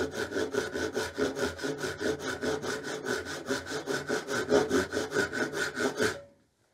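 Brass-backed dovetail saw cutting the tails of a dovetail joint in a wooden board, with quick, even back-and-forth strokes at several a second. The sawing stops suddenly about six seconds in.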